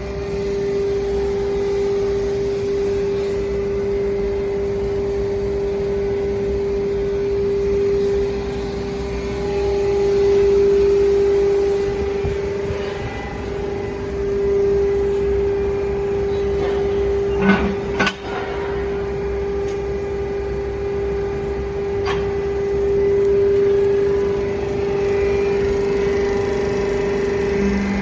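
Double-action hydraulic metal scrap baler running, its hydraulic power pack giving a steady hum with a strong single tone that swells and eases as the rams work. A couple of sharp metal clanks come about two-thirds of the way through, and a lighter knock a few seconds later.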